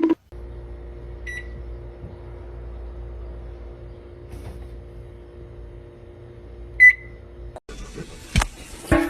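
A steady electrical hum from a running appliance, with two short high beeps, one about a second in and a louder one near seven seconds. The hum cuts off suddenly about a second and a half before the end, followed by rustling and a couple of sharp knocks.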